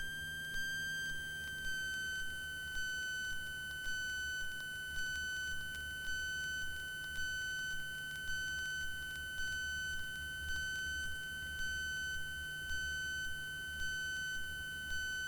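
Steady high-pitched electronic tone with overtones in the aircraft's headset and radio audio, settling slightly lower in pitch about two seconds in, over a faint low hum that pulses softly about once every three quarters of a second.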